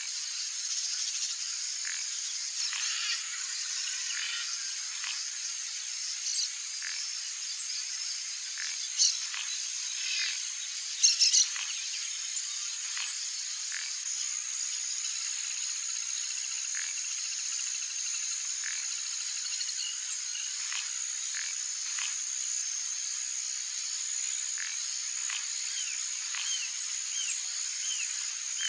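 Wetland animal chorus: a steady high-pitched trill with many short chirps scattered through it, and a few louder sharp calls about 9 and 11 seconds in.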